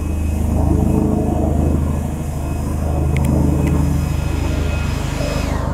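Helicopter flying overhead: the rapid, even chop of the main rotor over a steady low engine drone.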